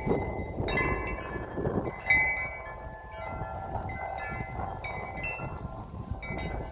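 Wind chimes ringing at irregular moments as the wind moves them, several tones overlapping and fading slowly, over a low rumble of wind on the microphone.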